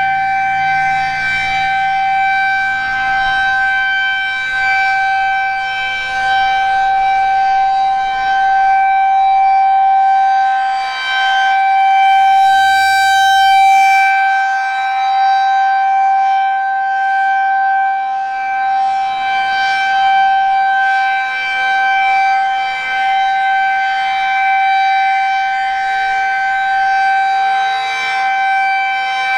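Federal Signal 2001-SRN rotating outdoor warning siren sounding its single steady tone during a scheduled test, loud and swelling and fading every few seconds as the horn turns. A brief rush of noise cuts in about twelve seconds in.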